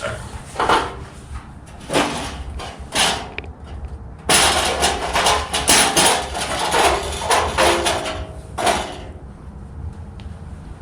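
A run of sharp knocks and clanks: a few single ones, then a dense clatter lasting about five seconds, fading near the end.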